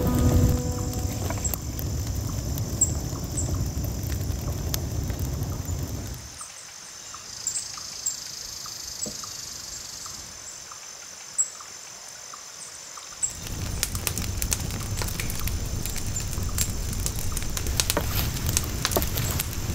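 Wood campfire crackling and popping over a low rush of flame. About six seconds in it gives way to quieter lakeshore ambience with faint, high bird chirps, and the crackling fire returns about seven seconds later.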